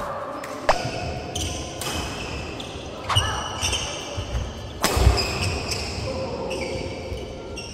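Badminton rally: sharp racket strikes on the shuttlecock at irregular intervals, the loudest about five seconds in, with court shoes squeaking on the wooden floor, all echoing in a large sports hall.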